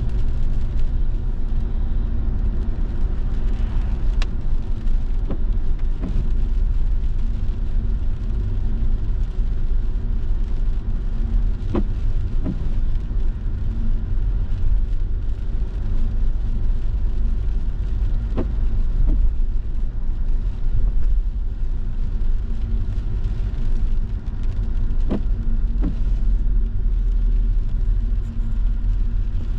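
Inside a car driving on a wet road: a steady low rumble of tyre and road noise. A faint pair of windscreen wiper strokes comes about every six to seven seconds.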